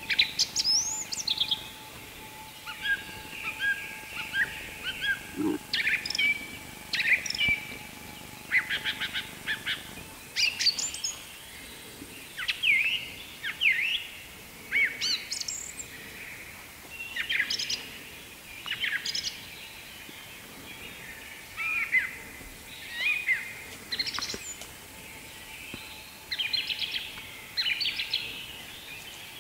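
Small birds calling through the whole stretch: short chirps, rising and falling whistled notes and quick rattling trills, one after another. Beneath them a faint steady high tone fades out about ten seconds in and comes back near the end.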